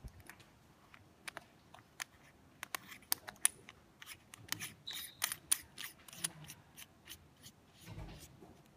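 Sharp, irregular plastic clicks and ticks from a black camera zoom lens being handled, its barrel and rings being twisted. A dull bump comes near the end.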